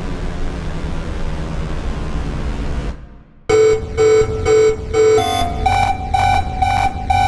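Square-wave synthesizer music imitating smoke-alarm beeps. A steady synth hiss with low rumble cuts out about three seconds in. Then come short, evenly spaced square-wave beeps, about two and a half a second, which jump up in pitch about halfway through the run.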